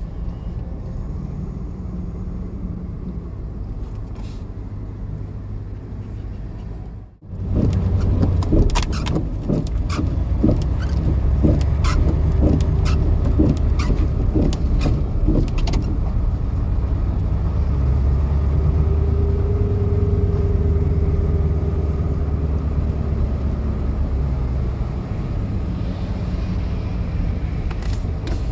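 A truck driving, its engine and road noise heard from inside the cab. After a cut about seven seconds in, it runs louder on a wet road, with scattered ticks and taps through the middle.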